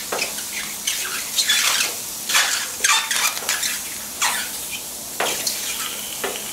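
Wooden spatula scraping and pushing button mushrooms across a hot griddle plate in repeated strokes, over the sizzle of the frying mushrooms, with a few faint high squeaks from the mushrooms.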